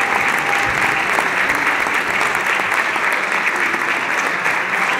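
Audience applauding steadily, a dense even clapping from a large crowd.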